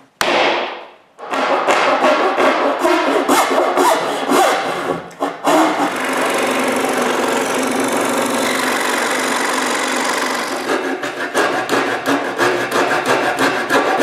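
Woodworking sounds while cutting dovetail waste: a sharp knock just after the start, then a Craftsman scroll saw cutting through a drawer side, steady through the middle. Near the end come quick, rhythmic hand-saw strokes from a coping saw.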